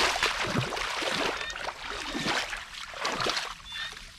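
Hands splashing and sloshing through shallow muddy water in irregular splashes while groping for fish, thinning out toward the end.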